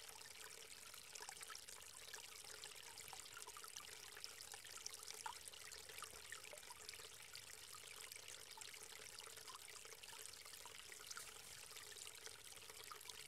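Small woodland creek trickling faintly, a steady babble of tiny splashes.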